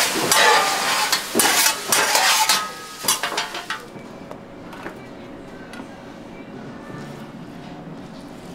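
A hot steel griddle sizzling in a cloud of steam while a scraper is pushed across it in several quick scraping strokes. About four seconds in it drops to a low kitchen background with a few faint knocks.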